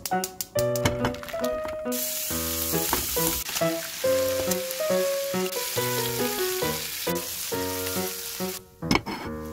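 Sliced smoked duck sizzling as it fries in a nonstick pan over medium heat, its rendered fat spitting. The sizzle starts about two seconds in and stops shortly before the end, over background music.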